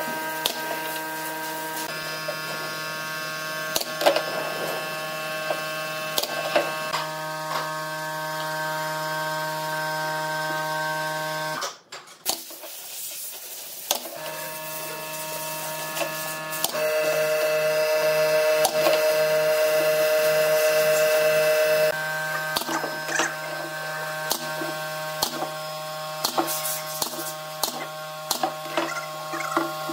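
Pneumatic brad nailer firing nails into pine boards: a sharp click with each shot, scattered irregularly, over a steady pitched hum that cuts out for about two seconds near the middle.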